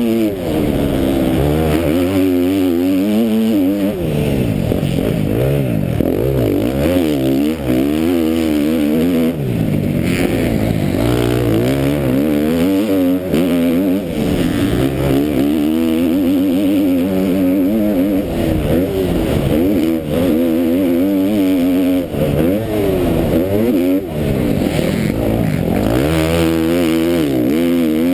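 KTM MX2 motocross bike's engine heard from the rider's helmet, revving hard up and down again and again as it accelerates, shifts gear and backs off into corners. A rushing noise runs underneath the engine.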